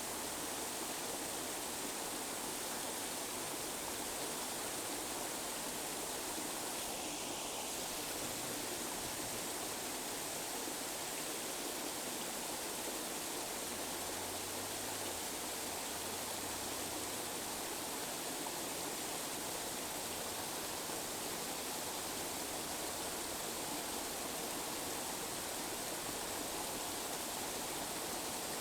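Steady tinnitus-masking noise: an even, unchanging hiss like rushing water, spread across the whole range but thin in the bass.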